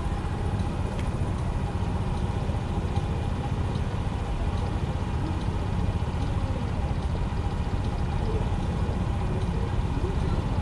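Small motorcycle's engine running at low speed just ahead, over a steady low rumble of wind and road noise from a moving bicycle.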